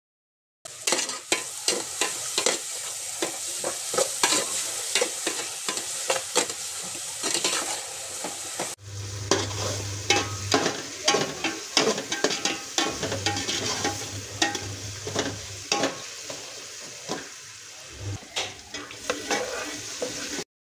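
A metal ladle stirring and scraping in a large aluminium pot with many quick clinks, while the food in it sizzles as it fries. The sound changes abruptly about nine seconds in, and after that a low hum comes and goes.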